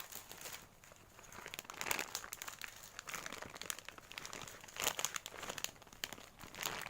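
Irregular crinkling and crackling of a squishy toy's plastic packaging as it is handled and squeezed, a little louder in a few spots.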